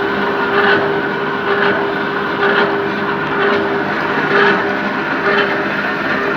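Hydraulic reciprocating saw running and cutting, a steady mechanical hum that swells and eases about once a second.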